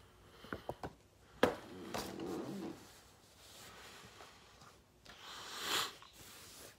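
Quiet handling noises as a hardcover book is picked up from a box set: a few soft clicks and a sharp tap in the first two seconds, then a noisy rustling slide that swells and fades near the end.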